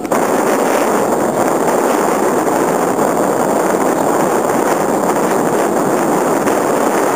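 Steady loud rushing noise, even throughout.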